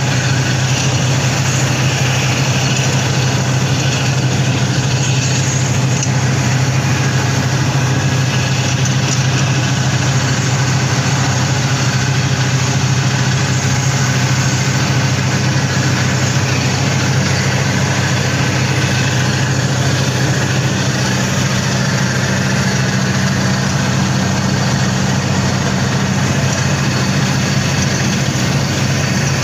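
Twin-head gas roofing torch burning steadily, a constant rushing noise with a low hum underneath. Its flame is melting the underside of an APP modified-bitumen membrane as the roll is torched down and fully bonded.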